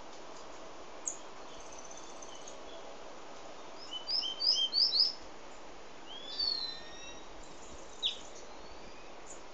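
White-collared seedeater (Sporophila torqueola) singing. A few isolated high chirps come first, then a quick run of short, sweet notes, the loudest part of the song. Drawn-out slurred whistles and a single sharp falling note follow.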